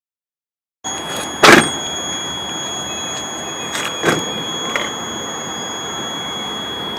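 Silence for about the first second, then a steady hiss with a thin, high-pitched steady whine. Over it come a loud sharp knock about a second and a half in and a few fainter clicks around four to five seconds in.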